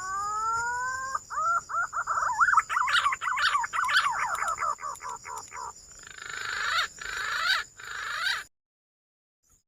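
Green pigeon (punai) calling: long rising whistled notes, then a quick run of warbling whistles, then lower falling whistles, stopping about eight and a half seconds in.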